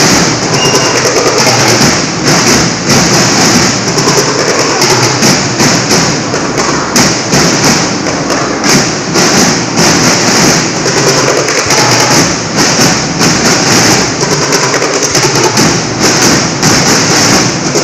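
Marching snare and bass drums of a school drum corps beating a loud, rapid, steady cadence.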